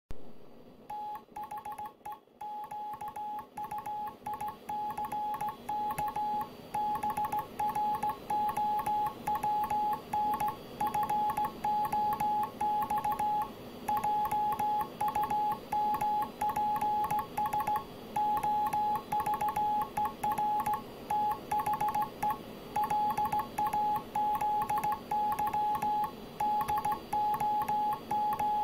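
Morse code sent by hand on a Junkers straight key: a steady mid-pitched sidetone beep keyed on and off in dots and dashes, starting about a second in, with a light click from the key at each stroke.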